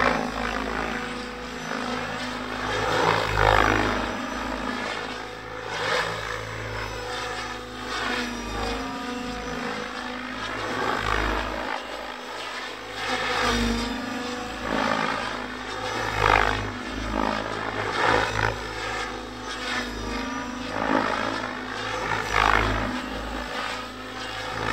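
Electric RC helicopter (HD Helicopters HD 750) flying aerobatics: its rotor blades whoosh and its drive whines, rising and falling in pitch and loudness again and again as it manoeuvres.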